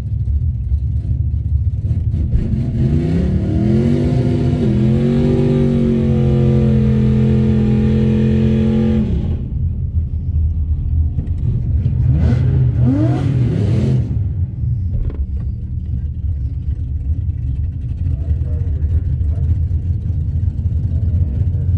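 Car engine rumbling at a deep, loud idle at the drag strip start. An engine is held at high revs for about six seconds starting roughly three seconds in, and is revved up quickly a few times around the middle.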